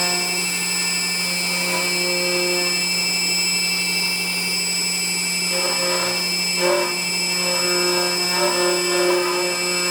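CNC router cutting hinge slots in a wooden door: the spindle runs with a steady high whine over a low hum, and the axis motors hum in short spells as the head moves. Rougher cutting noise comes in bursts from about halfway through.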